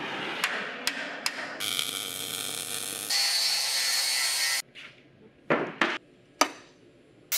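Metal shop work in quick cuts: a steady hiss with sharp clicks, then an angle grinder grinding the steel frame with a loud, steady high hiss for about a second and a half, then near quiet broken by three sharp knocks as toggle clamps are set.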